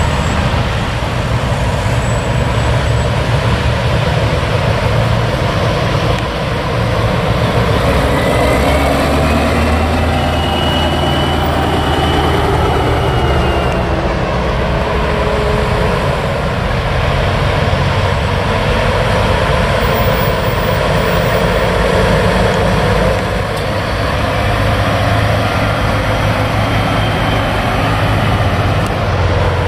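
Diesel engines of semi trucks and passing cars in a slow convoy, a steady run of engine rumble and road noise. A faint high whine rises briefly about eight seconds in.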